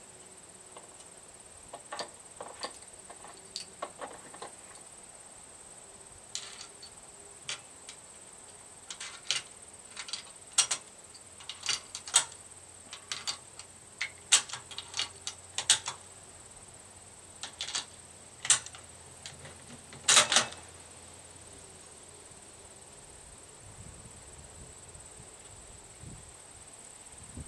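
Irregular light clicks and knocks of a bolt-action rifle being handled and readied, with no shot fired. The clicks come in scattered clusters, and the loudest is a short knock about twenty seconds in. A faint steady high whine runs under them.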